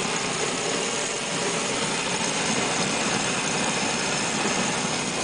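Waste-oil burner with an external air supply running after being fired: a steady rush of blower air and atomized oil flame with a rough, fast rumble underneath.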